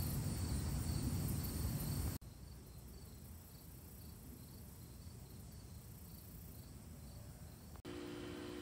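Insects chirping in a steady pulsing rhythm over low background noise. The sound drops abruptly to a quieter stretch a couple of seconds in, and near the end it cuts to a steady electrical hum.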